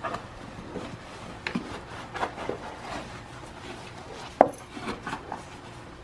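Hands working the fabric cover and padding of a Maxi Cosi Mico AP infant bucket seat over its hard plastic shell: scattered plastic clicks and knocks with fabric rubbing between them, and a sharper click about four and a half seconds in.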